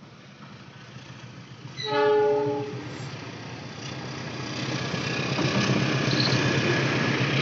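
A locomotive sounds one short horn blast about two seconds in, then the train's rumble builds steadily louder as it approaches.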